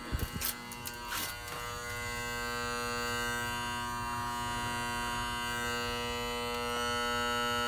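Electrical buzz from a Honeywell heating control box, a steady several-toned hum that switches on with the downstairs heat. It grows louder about two seconds in and again near the end, with a few light handling knocks near the start.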